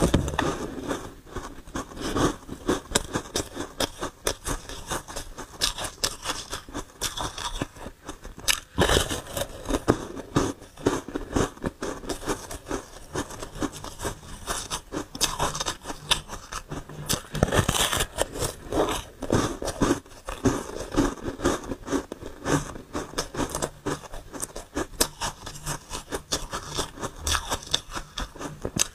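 Crunching and chewing of soft, frosty foam ice bitten from a frozen star-shaped slab: a dense run of sharp, close crackles and crunches, with louder bites now and then.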